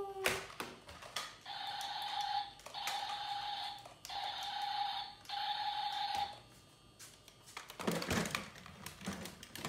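Four evenly spaced buzzy electronic beeps, each about a second long, with short gaps between them. After a pause come scattered knocks and handling clatter.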